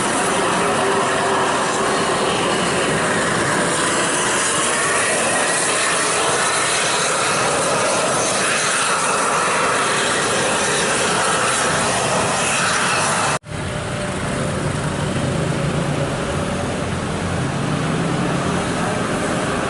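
Loud, steady engine and road noise of heavy vehicles on a steep mountain grade. It breaks off abruptly about thirteen seconds in and picks up again with a deeper engine rumble.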